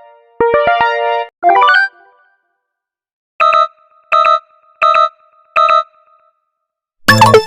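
Synthesized alert tones of a mock emergency alert: a held synth chord about half a second in, then a quick run of notes. Four short, evenly spaced beeps follow, each on two pitches an octave apart, and a loud harsh burst comes near the end.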